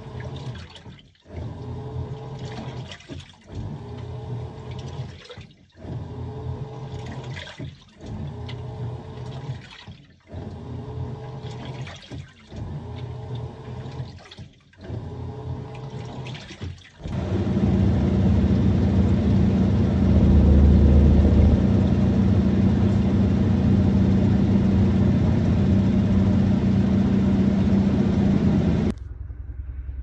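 Sharp ES-GV8D top-loading washing machine in its wash action: water sloshing and motor hum in strokes of about two seconds, with short pauses as the drive reverses. About halfway through it changes to a louder, steady whir with hum, plausibly the tub spinning near the end of the cycle, which drops away shortly before the end.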